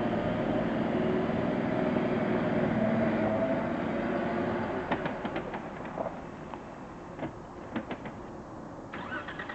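Vehicle winch running under load with a steady whining drone, dying away about halfway through, followed by scattered clicks and knocks.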